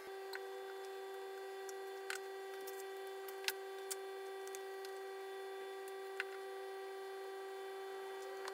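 Small objects set down on a wooden desk: a handful of sharp taps and clicks spread over several seconds, over a steady hum.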